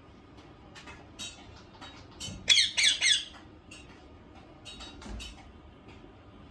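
Indian ringneck parrot squawking: a quick run of three or so loud, harsh calls about two and a half seconds in, with scattered short chirps and clicks before and after.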